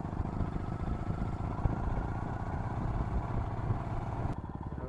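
Motorcycle engine running as the bike rides along a dirt track, with rapid even firing pulses. Near the end the sound changes abruptly to a quieter, more regular engine note.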